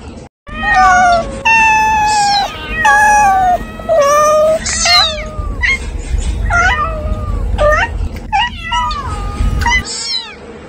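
A young animal's high-pitched cries: about four long drawn-out calls, then a run of shorter cries that slide up or down in pitch.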